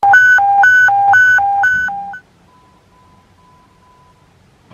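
Electronic two-tone alert alternating between a low and a high pitch, switching about four times a second, cutting off after about two seconds. A faint steady tone follows.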